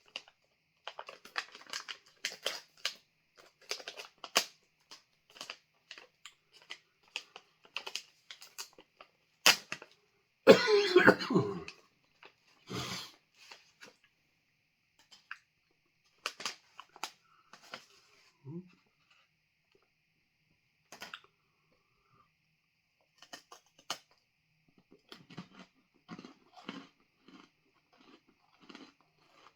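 A man chewing a crunchy freeze-dried ice cream sandwich, many short crunches, then a loud cough about ten seconds in and a shorter one a second or two later. The coughing is brought on by the 7-Pot Primo chili pepper dust on the bar. Crunching starts again near the end.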